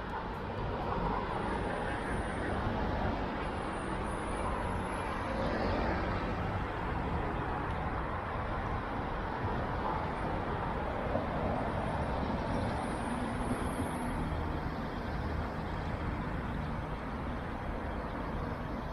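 Street traffic noise: road vehicles, buses among them, running past in a steady wash of sound.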